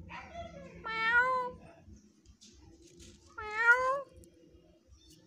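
Stray kitten meowing: a faint falling meow at the start, then two loud high-pitched meows, one about a second in and one about three and a half seconds in.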